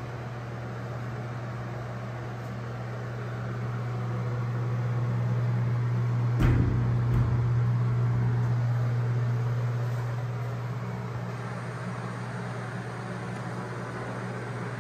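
A steady low mechanical hum that swells louder through the middle, with a sharp knock about six and a half seconds in and a lighter one shortly after.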